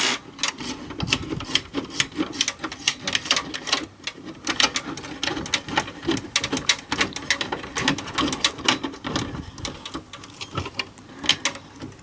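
Dense, irregular clicking and rattling of hands working a braided-sleeve cable and its connector inside the metal chassis of an HP ProLiant MicroServer.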